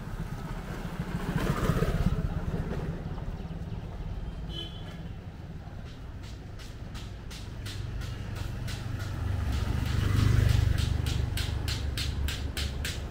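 A motorcycle passes close by a second or two in. Later another engine grows louder, peaking around ten seconds in, while footsteps on the concrete lane click about twice a second through the second half.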